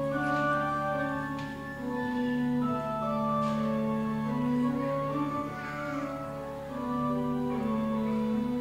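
Church organ playing slow, held chords that move to new notes every second or so.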